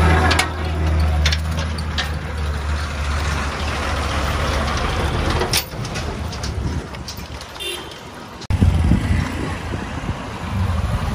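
Large diesel truck engine running close by, a steady low drone that fades out about six seconds in, with a few sharp clicks and knocks over it. After that, looser street and traffic noise.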